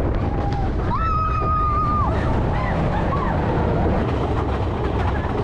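Steady rumble of wind and track noise aboard the Big Thunder Mountain Railroad mine-train roller coaster. About a second in, a rider lets out one long whoop that rises, holds for about a second and falls.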